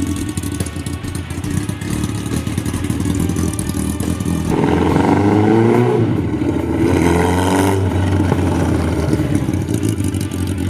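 1979 Kawasaki KZ1000's air-cooled inline-four engine running, then revving up as the bike pulls away. About four seconds in it gets louder, and its pitch rises in two sweeps before easing back.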